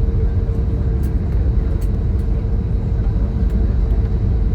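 Cabin noise inside an Airbus A320neo moving on the ground after landing: a steady low rumble with a constant hum.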